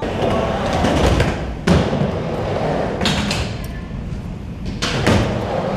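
Skateboard wheels rolling over a skatepark's floor and mini ramp, with a few sharp board clacks and landings.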